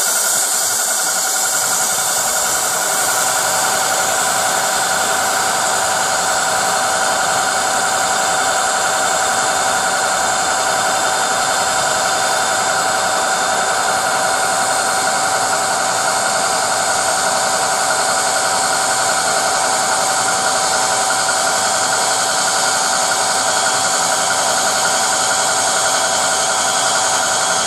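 General-purpose metal lathe, converted for diamond cutting, running steadily as it turns a car wheel. It gives a continuous whine with a bright hiss over it, unchanging throughout.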